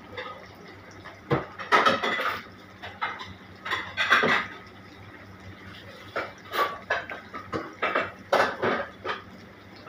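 Aromatics sautéing in oil in a wok, a steady low sizzle, with irregular clatter of pots and utensils several times.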